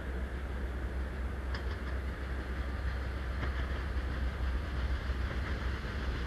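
ST44 'Gagarin' diesel locomotive (two-stroke V12) approaching at the head of a heavy freight train, its engine a steady deep drone growing slowly louder, with a few faint clicks about a second and a half in.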